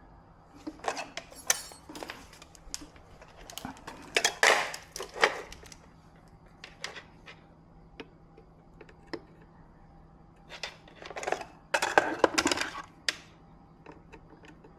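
Small hard objects clinking and clattering in several short bursts, loudest about four to five seconds in and again around twelve seconds in, with scattered single clicks between, over a faint steady hum.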